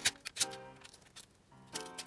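Background music: a few separate pitched notes, with sharp clicks loudest right at the start.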